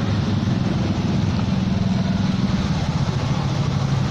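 A small engine idling steadily close by, its low, even beat shifting slightly in pitch partway through.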